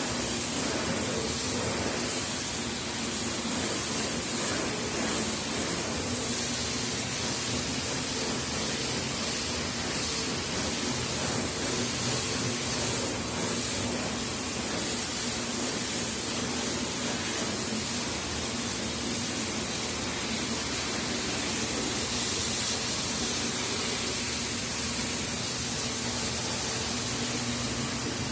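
3-axis sanding machine running steadily while sanding a guitar soundboard: an even hiss of abrasive on the wood over a low, steady motor hum.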